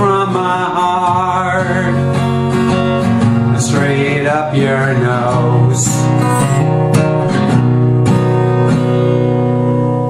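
Country music with acoustic guitar and a bending melody line over it, with no words sung, getting quieter near the end.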